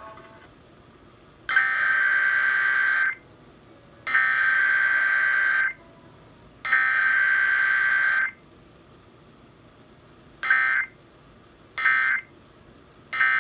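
Emergency Alert System SAME data tones for a Required Weekly Test. The digital header plays as three bursts of buzzy data tone, each about a second and a half long with a second's gap between them. About ten seconds in come three short end-of-message bursts.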